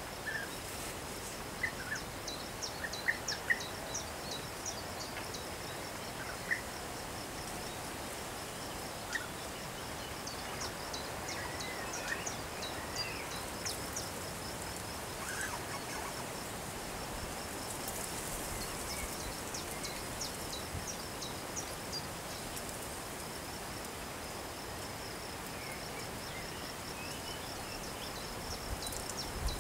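Steady high-pitched insect trill with a fine even pulse, with short bird chirps scattered over it, thickest in the first half.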